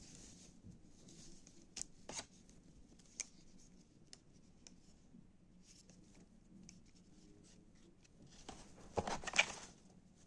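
Paper and cardboard packaging being handled: scattered small clicks and light rustles, then a louder paper rustle near the end as a printed leaflet is lifted out of the box.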